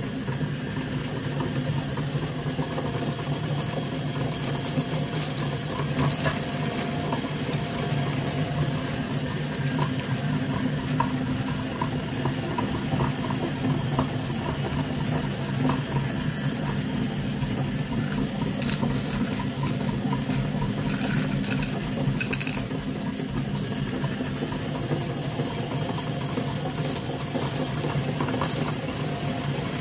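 Meat grinder running steadily, grinding chocolate-coated candies, with a constant hum and scattered crunching clicks.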